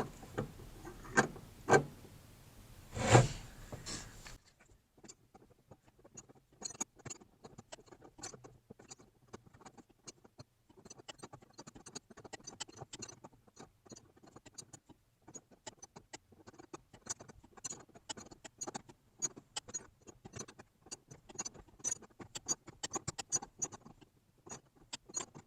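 Hand wrench working on the clutch arm's nut: a few sharp metal clinks in the first few seconds, then a long run of faint, irregular ticks and scrapes of tool on metal.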